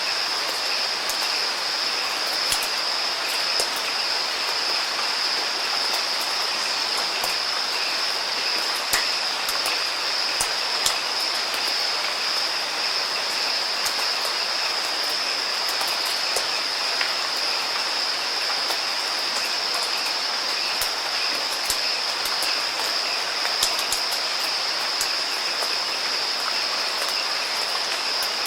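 Steady rain falling, with sharp scattered drop impacts standing out from the even hiss, over a constant high-pitched tone.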